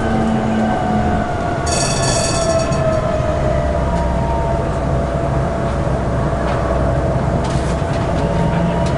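Tatra KT4D tram running on rails: a steady low rumble with a whining tone that slowly falls in pitch. About two seconds in there is a brief high-pitched wheel squeal lasting about a second.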